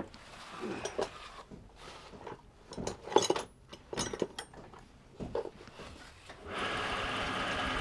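Irregular knocks, clinks and scrapes of tools and wood being handled. Near the end a bench drill press motor starts and runs steadily.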